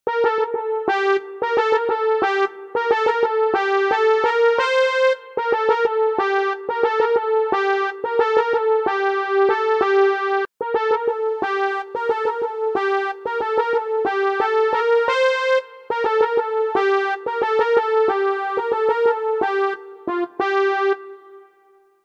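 Electronic keyboard playing a single-note melody, heard dry through its direct line input with no room sound. It runs in two phrases with a brief gap about ten and a half seconds in, and the last note rings out near the end.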